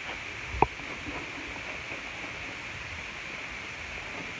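Steady hiss with one sharp knock about half a second in, and a few faint crunches of a horse eating popcorn.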